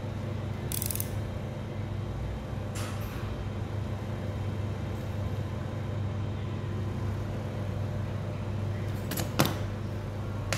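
A craft knife scratches along a steel ruler as it cuts leather, in a few short strokes, over a steady low hum. A sharp knock comes near the end.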